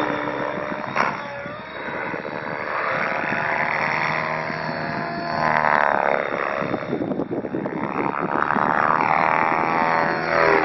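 Align T-Rex flybarless radio-controlled helicopter flying aerobatics: a steady hum of motor and rotor, with the rotor sound sweeping up and down in pitch and swelling louder about halfway through and again near the end as it manoeuvres and passes.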